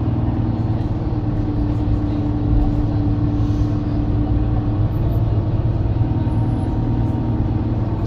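Alexander Dennis Enviro 300 single-deck bus running: a steady engine and drivetrain drone with a held hum that drops away about five seconds in.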